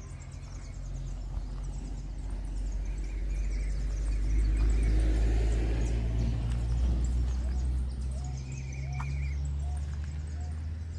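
A road vehicle passing: a low rumble that builds to its loudest about halfway through and then fades away. A few short bird chirps come near the end.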